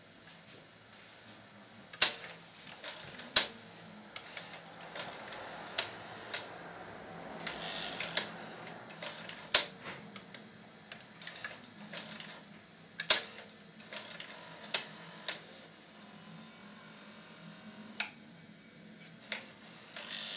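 Irregular sharp clicks and knocks, about ten loud ones among smaller ticks, from hard plastic and metal parts and tools being handled while a VCR is taken apart, over a faint steady low hum.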